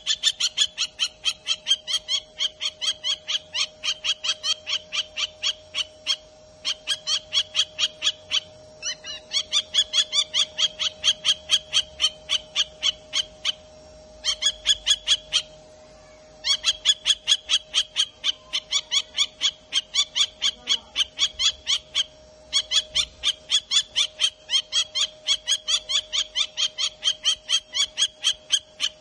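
Kestrel calling a rapid, high, repeated kee-kee-kee, about four notes a second, in long runs broken by brief pauses.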